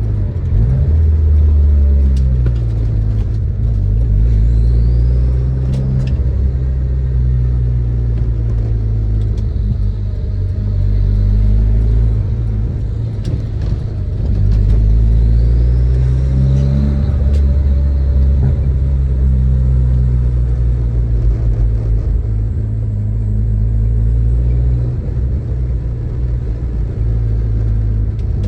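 Turbocharged Audi A3 1.8T 20V inline-four with a 3-inch stainless exhaust, driving with a deep, steady exhaust drone. The revs swell a few times, with a faint rising whistle on the two biggest pulls.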